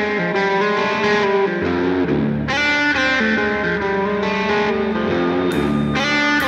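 Background music: an electric guitar playing a melody with effects.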